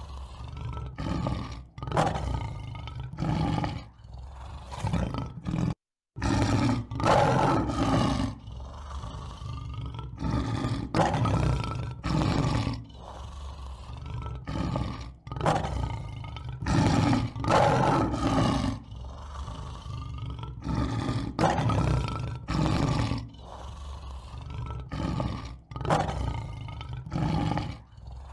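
Lion roaring again and again, a series of deep calls each lasting one to two seconds, with a brief dropout to silence about six seconds in.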